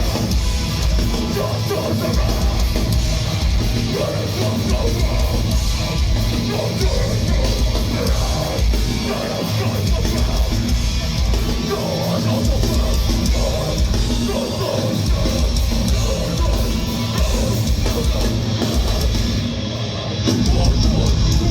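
Heavy metallic hardcore band playing live at full volume, with distorted guitars and drum kit. It gets louder about 20 seconds in.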